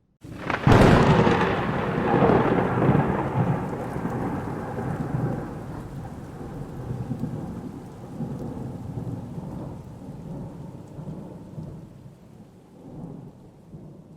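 A thunderclap: a sudden sharp crack just after the start, then a long rolling rumble that swells a few times and slowly dies away.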